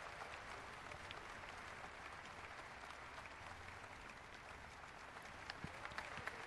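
Faint, steady scratchy rubbing of a wax crayon being stroked back and forth over paper, with small ticks.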